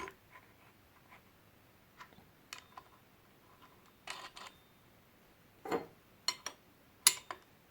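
Scattered light clicks and clinks of small metal parts being handled: the grinding wheel and its retaining nut off the cutter grinder's spindle. A few short clusters of clicks, the sharpest one near the end.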